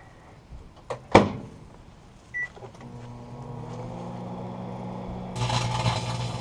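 Microwave oven door clunking shut, a single keypad beep, then the oven starting up with a steady electrical hum. Near the end a louder crackling hiss joins the hum as the metal tape inside starts to arc.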